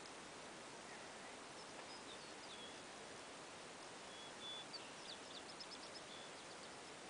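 A small songbird singing faintly: scattered high chirps, then a quick run of short repeated notes near the end, over a steady outdoor hiss.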